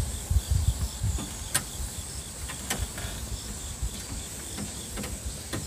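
Insects calling in a steady high-pitched trill with evenly repeating chirps, over a low rumble, with a few sharp clicks.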